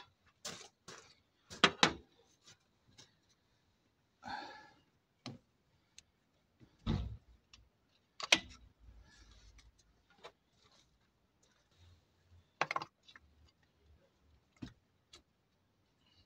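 Scattered clicks, light knocks and rubbing as the engine's braided breather hose and oil condenser are pushed back into place by hand, with a few louder knocks spread through.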